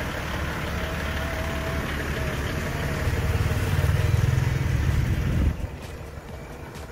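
Toyota Land Cruiser HDJ80R's 4.2-litre straight-six turbo-diesel idling, a steady low rumble. It grows louder about three seconds in and drops away abruptly near the end.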